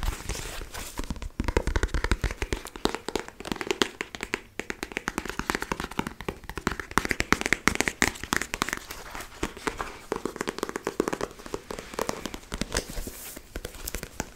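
Fingers tapping and handling a paperback book close to the microphone: many quick, irregular taps and light crinkling of the cover.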